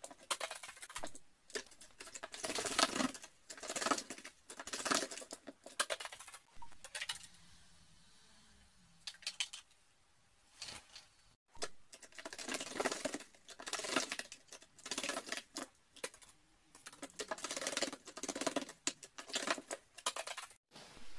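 Carrion crow bathing in a plastic basin: quick bouts of splashing and wing-flapping in the water, sped up into rapid spattering bursts, with a quieter pause of a few seconds in the middle.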